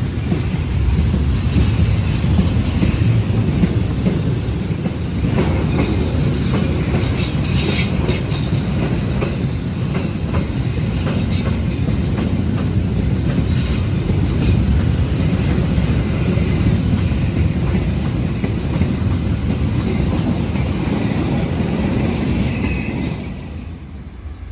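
Container freight train rolling past: a steady heavy rumble of wagons, with clicking wheels over rail joints and short high-pitched wheel squeals. It dies away near the end.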